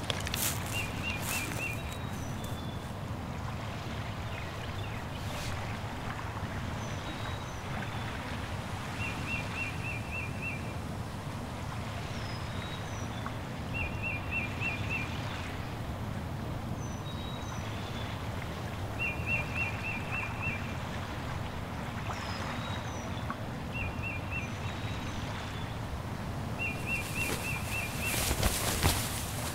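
Woodland ambience: steady background noise, with a small songbird repeating a short rapid trill every few seconds and fainter high chirps. Near the end, footsteps and rustling as someone walks past close by, the loudest sounds.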